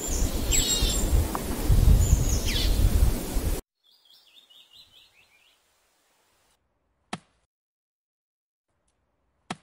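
Birds chirping over loud outdoor noise with a low rumble, which cuts off abruptly after about three and a half seconds, then faint birdsong. Near the end come two sharp single chops of an axe biting into a tree trunk, a couple of seconds apart.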